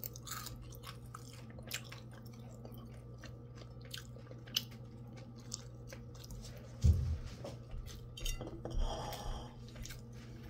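A person chewing food with small, quiet crunches and mouth clicks over a steady low hum. A dull thump comes about seven seconds in, then a spoon clinks against a dish.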